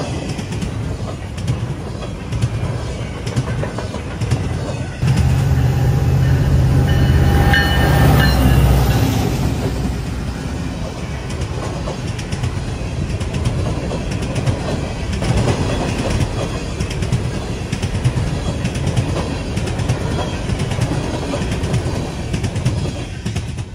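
Freight train of empty coal hoppers rolling past close by, a continuous rumble with the wheels clattering over the rail joints. It gets louder about five seconds in and eases off after about nine seconds, with brief high ringing tones around seven seconds.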